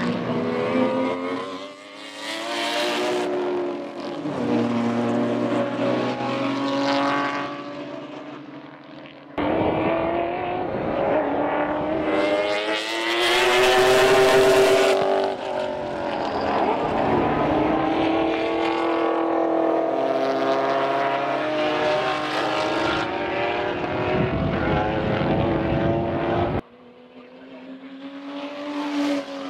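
Sports sedan race car engines at full throttle on track, their notes rising and falling through gear changes and passes. The sound switches abruptly twice, about a third of the way in and near the end.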